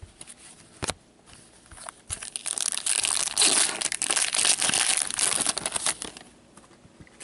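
Foil wrapper of a trading-card pack being torn open and crinkled: a dense crackling from about two seconds in until about six seconds, after a single sharp click about a second in.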